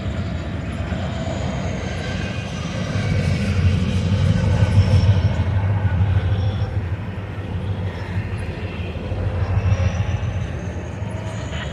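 Norfolk Southern freight train rolling past with a steady low rumble, swelling about four to five seconds in and again near ten seconds. A faint high whine glides upward near the end.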